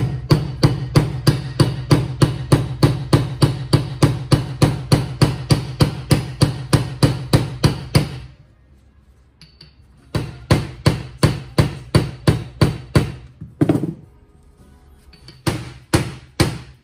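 Hammer blows on a socket used as a drift in the swingarm pivot bore of a BMW R1100GS bevel drive housing, driving the swingarm bearing. The blows are quick and even, about three or four a second. A run of about eight seconds is followed by a short pause, then a shorter run and a few last strikes near the end.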